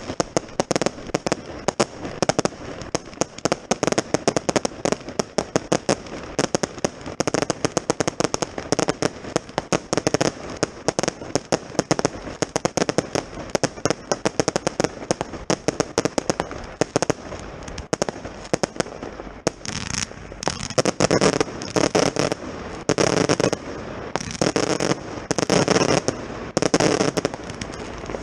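Six Lesli Brutus firework batteries firing a dense, rapid stream of cracks and bangs; about 18 s in, two Lesli Ataka batteries take over with separate loud shots about once a second.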